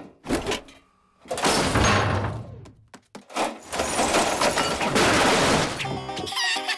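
Cartoon slapstick sound effects over background music: a sharp knock, then two long stretches of crashing, shattering noise.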